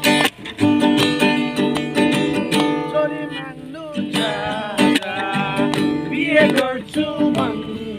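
Acoustic guitar being strummed in a steady rhythm of chords, with a voice singing briefly over it around the middle and again near the end.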